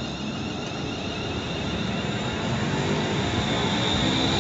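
London Northwestern Railway electric multiple unit moving off along the platform, its traction motors whining over the rumble of the wheels, growing louder as it picks up speed, with a high steady whine strongest near the end.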